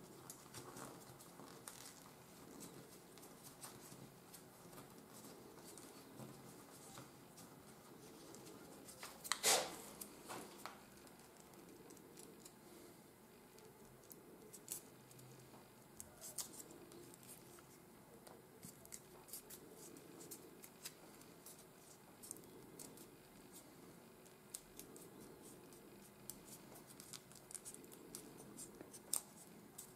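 Faint rustling and crackling of a small piece of 80 g/m² office paper being pressed and rolled between the fingertips into a thin tube, with small crackles throughout and one louder crackle about nine to ten seconds in.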